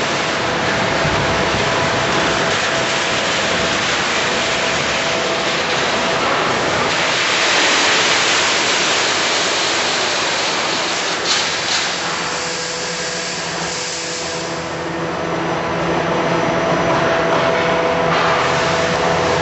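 Wire mesh welding line running: steady mechanical noise with hiss and a faint steady hum, with two short knocks about eleven seconds in.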